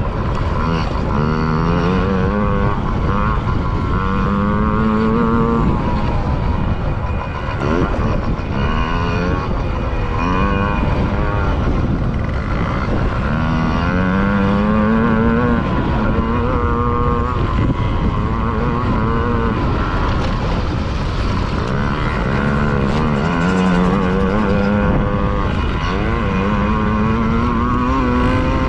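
Yamaha PW50's small 49cc two-stroke single being ridden hard. Its pitch climbs under throttle and drops off several times over the stretch, as it goes on and off the gas. Wind rushes steadily across the onboard microphone.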